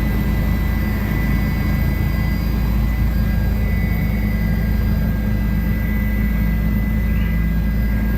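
Helicopter in flight heard from the cabin: a steady, loud drone of engine and rotors with a faint high whine over it.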